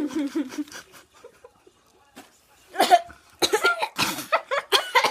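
A girl coughing and laughing through a mouth stuffed with marshmallows. A muffled voice is heard in the first second, then a short lull, then a run of short coughs and laughs from about three seconds in.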